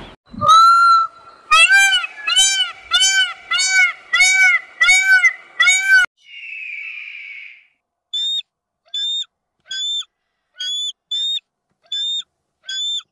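Bird calls: a run of about nine loud calls, each rising and falling in pitch, at about one and a half a second. Then a short hiss, then a series of short high notes about one every 0.8 seconds.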